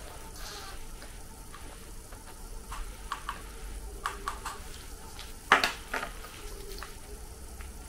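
Small plastic and glass clicks and taps as perfume is pushed from a plastic syringe into a small glass decant vial, then one louder knock about five and a half seconds in as the syringe is set down on the wooden table.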